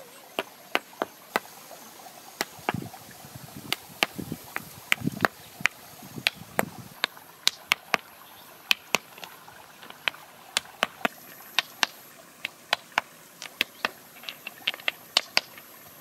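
Stones knocking together: sharp clacks at an uneven pace, about two or three a second, as rocks are set into place and tapped down with a hand-held stone.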